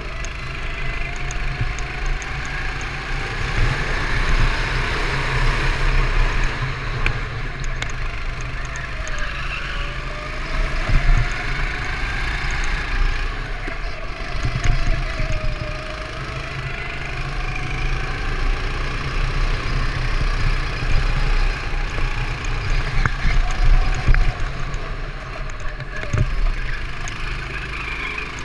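Go-kart engine heard on board at racing speed, its pitch slowly rising and falling as the throttle opens and closes through the corners, over a constant low rumble of wind and vibration on the mount.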